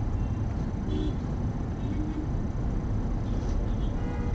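Steady low rumble of slow-moving city traffic and engine noise, heard from inside a car through a windscreen-mounted dashcam, with a few faint short tones about one and two seconds in.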